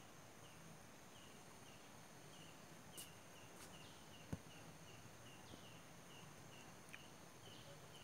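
Near silence with a faint high chirp repeating about three times a second, from a small chirping animal. A single sharp click comes about four seconds in.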